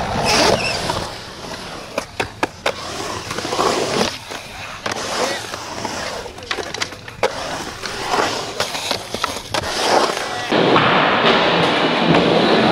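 Skateboard wheels rolling on concrete ramps, broken by several sharp clacks of the board popping and landing. About ten seconds in, it changes to louder, steadier rolling of a skateboard on wooden ramps.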